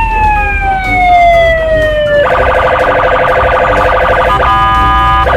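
Police car electronic siren: one long wail that slowly falls in pitch, then about two seconds in switches to a fast pulsing yelp. Near the end the yelp breaks briefly into a short steady tone.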